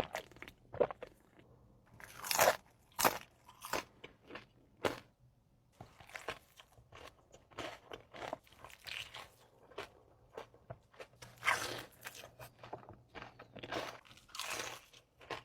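Crunchy food being bitten and chewed close to the microphone, in irregular loud crunches with quieter chewing between them.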